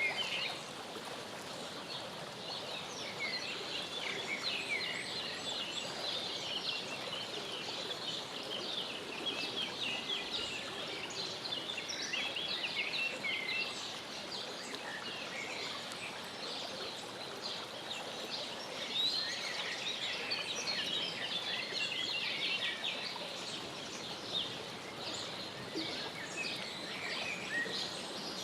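Many short, high-pitched bird calls and chirps overlapping throughout, over a steady outdoor hiss.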